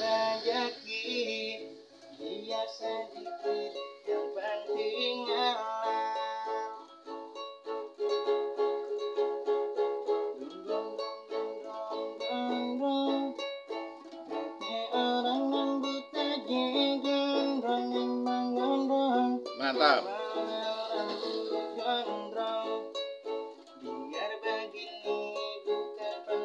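Ukulele played solo, strummed chords and plucked notes in an instrumental passage with no singing.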